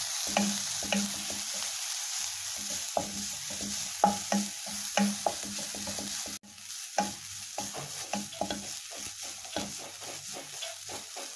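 Yellow spatula stirring and scraping grated coconut around a non-stick pan as it roasts, in quick irregular strokes over a faint steady hiss from the pan. The sound cuts out for an instant about six seconds in.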